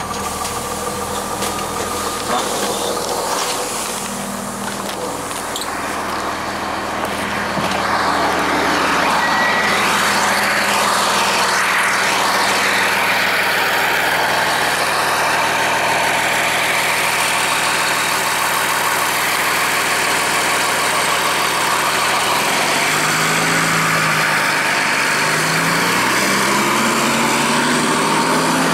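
The 2002 Blue Bird CS transit bus's Cummins ISC diesel engine running, getting louder about eight seconds in. Near the end its pitch rises, drops and rises again, as the Allison automatic transmission shifts up under acceleration.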